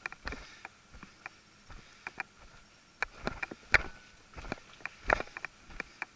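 Footsteps crunching on loose stones and gravel: an irregular series of short crunches, bunched in quick clusters.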